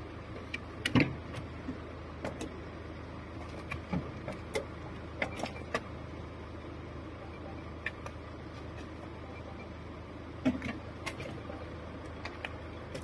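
Scattered light clicks and knocks, a few seconds apart, over a faint steady hum, as a car door is handled. The sharpest knock comes about a second in.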